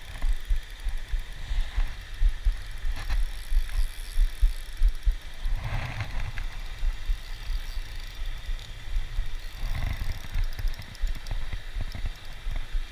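Low, irregular rumbling and buffeting on the microphone, typical of wind hitting a body-worn camera outdoors, swelling louder about six seconds in and again near ten seconds.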